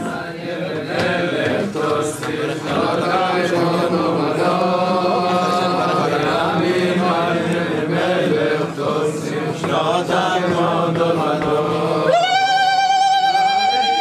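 A group of men singing together in unison, a loud steady chant. About twelve seconds in, a single high voice holds one long wavering note over it.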